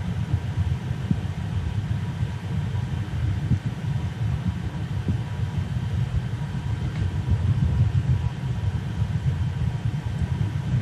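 Steady low rumble with faint, even high hum tones over it: a Qidi X-Max 3D printer's fans running with the machine idle after a print.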